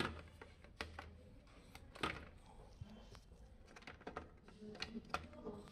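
Faint, scattered clicks and light taps as an aluminium motor controller box is handled and set against a plastic bike frame.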